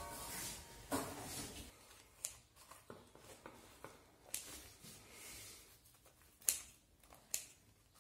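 A knife cutting through a baked pizza's crust on a wooden board: faint, irregular crackles and sharp clicks, the loudest two near the end.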